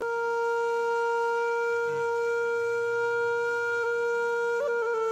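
Background music: a wind instrument holding one long steady note, with a brief bend in pitch near the end.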